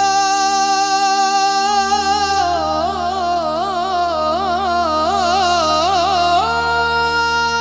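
Qawwali singing: one voice holds a long note, breaks into quick ornamented turns in the middle, then settles on a higher held note, over a steady drone.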